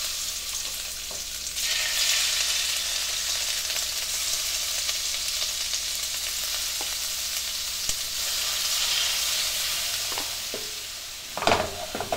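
Raw shrimp sizzling as they are dropped one by one with metal tongs into a hot wok greased with olive oil cooking spray, with small clicks along the way. The hiss grows louder a second or two in as more shrimp hit the pan. A few sharp knocks come near the end.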